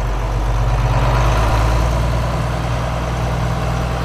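John Deere 4440's six-cylinder turbocharged diesel engine running steadily as the tractor is driven along.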